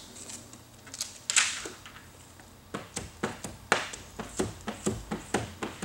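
Squeegee swiped over wet window film on car door glass. There are two single strokes about a second in, then a quick run of short swipes at about four a second from about three seconds in.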